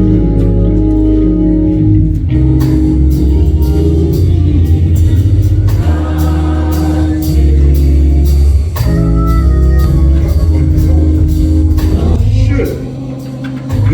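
Gospel music from a church band: a Hammond-style organ holds chords over heavy bass, and a steady percussion beat comes in about two seconds in.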